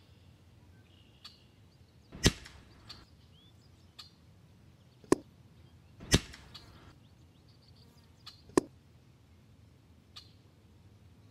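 Sharp cracks of a PCP air rifle (EDgun Leshiy 2 in .30 cal) firing, four loud shots about 2, 5, 6 and 8.5 seconds in, with fainter clicks between, while small birds chirp.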